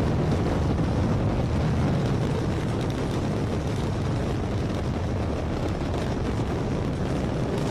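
Steady low rumble of the Long March 5 rocket's engines in powered ascent.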